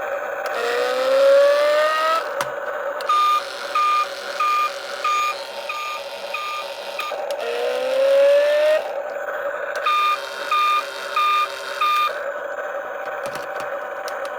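RC toy's electronic sound effects: a rising tone followed by six evenly spaced beeps, then a second rising tone and four more beeps, over a steady electronic hum.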